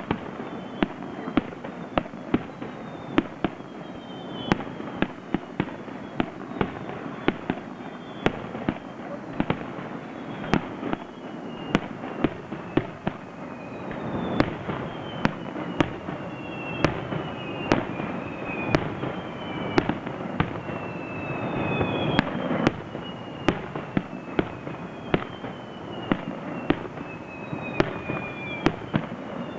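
Aerial fireworks display: shells bursting in quick succession, about one or two sharp bangs a second, over a continuous crackle. Many high whistles fall in pitch, more of them in the second half.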